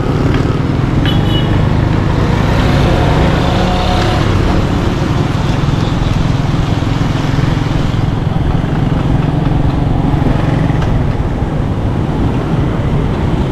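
Steady engine and road noise from a vehicle riding along a busy city street, with the hum of surrounding traffic.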